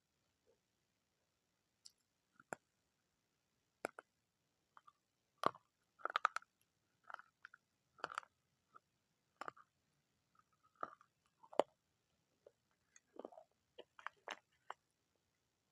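A person biting and chewing crunchy food close to the microphone: irregular sharp crunches and crackles, denser through the middle and near the end.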